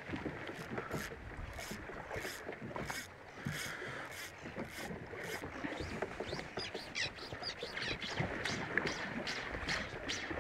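Water lapping and slapping against the hull of a small aluminium boat drifting in a chop, with short hissing swishes repeating about twice a second in the first half.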